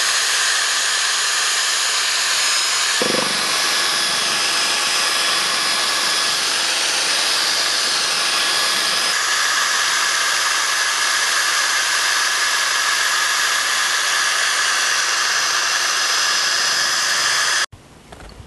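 Cordless drill running steadily with a mixing rod chucked in it, stirring polyester flow coat, tint and talc in a plastic bucket; the drill stops suddenly near the end.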